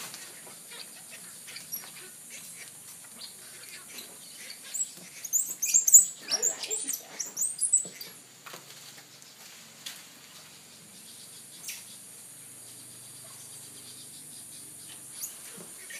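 Squirrel monkeys squeaking and chirping in short, high-pitched glides, with a loud flurry of squeaks in the middle while two of them tussle. Light pattering and scuffling of small feet on a tile floor.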